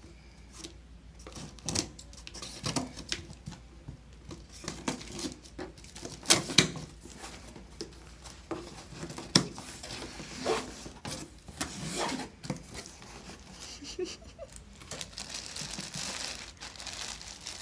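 Packing tape on a cardboard box being slit and torn and the cardboard flaps pulled open, with scattered sharp clicks and scrapes. Near the end, a plastic bag crinkling as it is handled.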